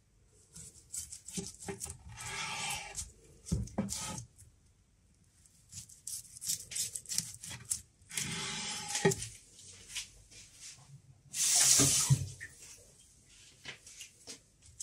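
Kitchen knife sawing through a rolled avocado maki, the nori sheet rasping and crunching in several separate strokes, the loudest near the end. Short knocks of the blade on the cutting board come between them.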